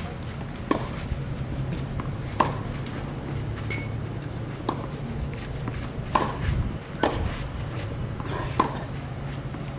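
Tennis balls being struck by rackets and bouncing on a hard court in a fed hitting drill: about six sharp pops one to two seconds apart, over a steady low hum.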